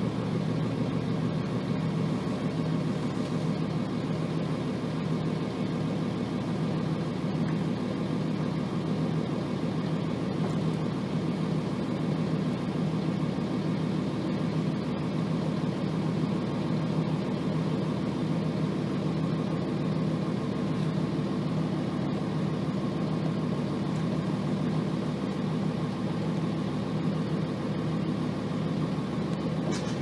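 Nissan Diesel FE6 inline-six diesel of a 1990 Nissan Diesel RM bus running steadily under way, heard from inside the cabin. The engine runs at rather high revs, on a bus whose transmission is known for gear whine.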